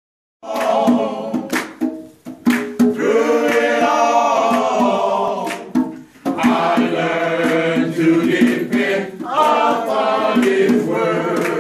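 Group of men singing a gospel song together in harmony, with hand-struck conga drum beats under the voices.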